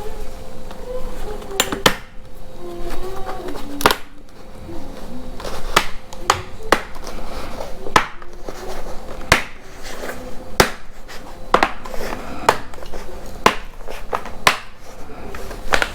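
Plastic laptop bottom cover being pressed back onto the chassis of a Dell Inspiron 5567, its clips snapping into place in about a dozen sharp clicks at irregular intervals. A faint wavering tone runs underneath.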